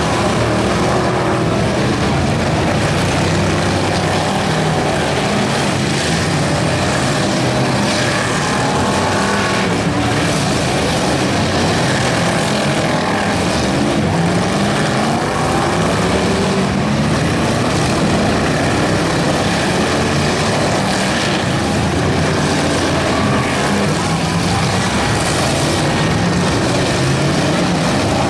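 Several stock car engines running hard together, loud and continuous, their pitches overlapping and rising and falling as the cars accelerate and back off.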